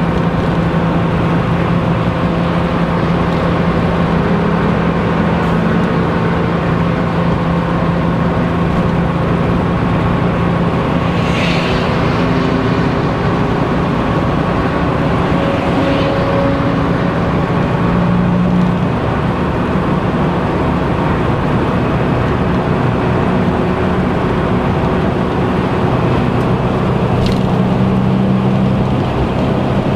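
Porsche engine drone and tyre roar heard from inside the cabin at steady motorway cruising speed. The low engine note shifts in pitch about two-thirds of the way through.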